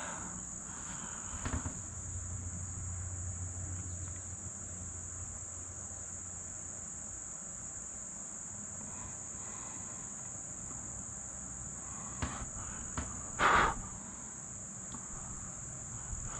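Steady high-pitched chorus of insects. There is a faint low hum for the first few seconds and one short louder noise about 13 seconds in.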